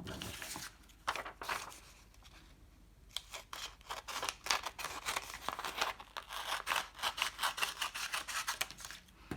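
Scissors cutting through a sheet of A4 paper, trimming off the excess strip to leave a square: a few snips, a short pause, then a quick run of snips at about three or four a second.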